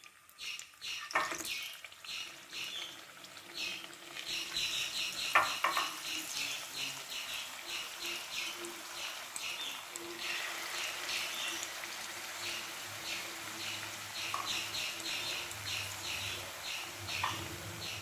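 Unnakkaya (stuffed ripe-plantain dumplings) deep-frying in hot oil, a steady crackling sizzle full of tiny pops, with a couple of sharper clicks about a second in and about five seconds in.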